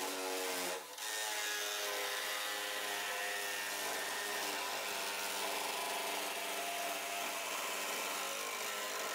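Makita corded jigsaw cutting a curved radius in metal plate, its motor and blade running at a steady pitch with a brief dip about a second in.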